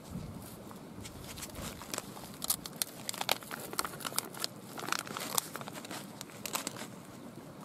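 Clear plastic bag of pre-cooked pasta crinkling as it is handled and its top is pulled open: a run of sharp crackles, thickest in the middle.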